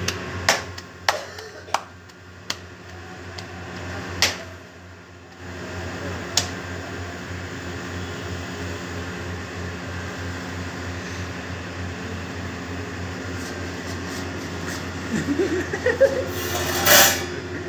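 Bread dough slapped between bare hands as it is stretched: a few sharp slaps in the first seconds, then single ones further apart. Under them a steady kitchen exhaust-hood fan hum, with a louder noisy burst near the end.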